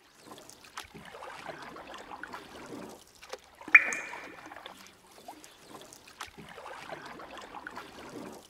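Water trickling and splashing, with one bright, ringing drop plinking into water a little under four seconds in, the loudest sound.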